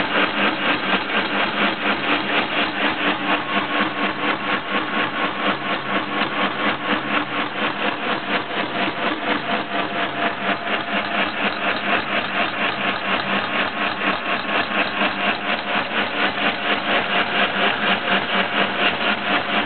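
Milling machine with a carbide cutter resurfacing a cast-iron exhaust manifold. The cutting noise is steady and loud, pulsing evenly several times a second.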